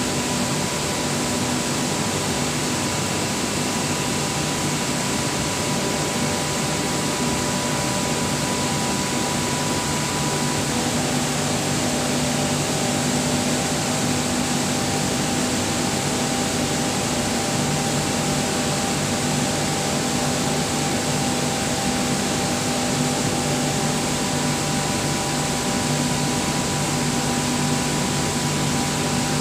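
Screw air compressor running steadily: an even machine noise with a constant hum beneath it.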